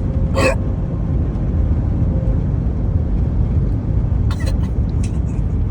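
Steady low rumble, with a short noise burst about half a second in and a few brief clicks about four seconds in.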